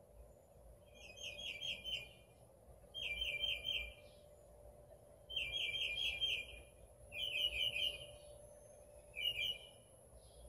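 A songbird singing: five short phrases of quick repeated notes, one about every two seconds.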